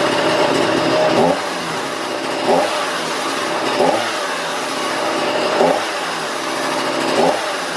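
Husqvarna 235 chainsaw's small two-stroke engine idling, blipped on the throttle five times. Each blip is a quick rise and fall in revs, about every second and a half.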